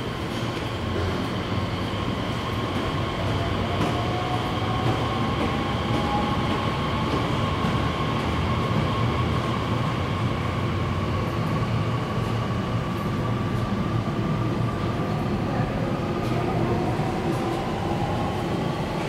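Nishitetsu electric train running through the elevated station with a steady rumble. Its motor whine rises in pitch twice, as a train does when gathering speed.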